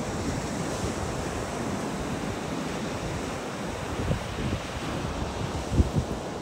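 Ocean surf washing onto a beach, a steady rush, with wind buffeting the microphone in low thumps, the strongest shortly before the end.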